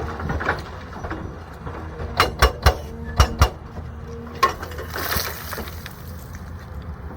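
Excavator engine running steadily, with a quick cluster of about five sharp knocks a little over two seconds in and one more knock about a second later.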